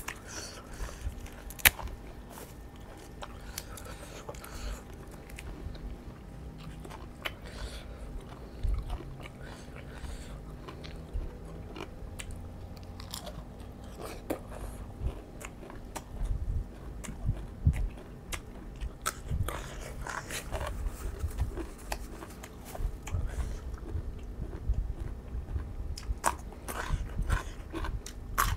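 A person chewing and biting into Isan raw shrimp salad and crisp raw vegetables, with close, crunchy bites. The crunching gets louder and busier in the second half.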